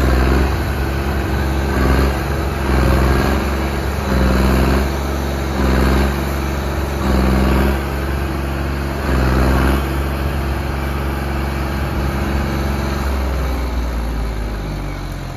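John Deere tractor's diesel engine revved hard in repeated surges, about seven bursts a second or two apart, while the tractor is held up on its rear wheels in a wheelie. In the last few seconds the surges stop and the engine runs steadily, slowly getting quieter.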